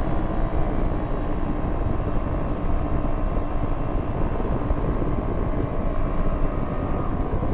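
Quad City Challenger II ultralight's engine running steadily in flight, a continuous drone with rushing airflow, heard from inside the cockpit.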